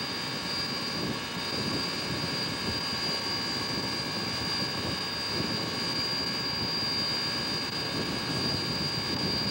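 FWWR #2248, a 4-6-0 steam locomotive, standing at rest and giving off a steady hissing drone with a rough low churn underneath and a thin, steady high whine.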